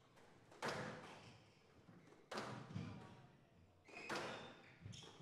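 Squash ball being hit back and forth in a rally: sharp racquet and wall hits, about five in all, each ringing briefly in the hall.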